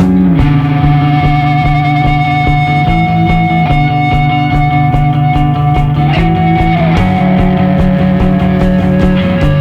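Background rock music with electric guitar, held notes and chords changing every second or so over a steady beat.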